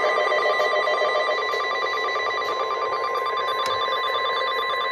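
NOAA Weather Radio warning alarm tone: a steady single-pitched tone of about 1050 Hz over radio hiss. It is the alert signal that opens a broadcast severe thunderstorm warning.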